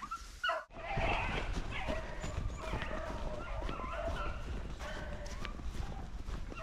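Beagles baying on a rabbit's trail, mixed with the rustle of brush and footsteps; the sound breaks off sharply for a moment about half a second in.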